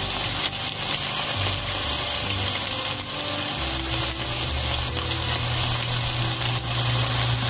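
Ground meat frying in a skillet, a steady sizzling hiss. A low steady hum underneath grows stronger about a second and a half in, with a few faint clicks.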